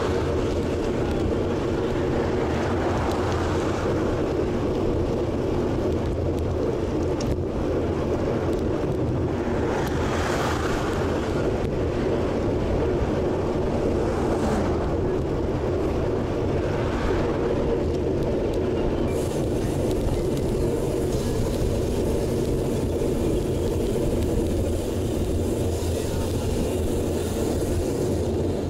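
Steady wind and road rush on an action camera's microphone while a road bike is ridden at about 30 km/h. Motor vehicles pass several times, each one swelling and fading.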